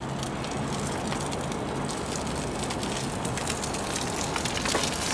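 Wind noise on the microphone with steady crackling and low rumble, and a faint low hum during the first two seconds.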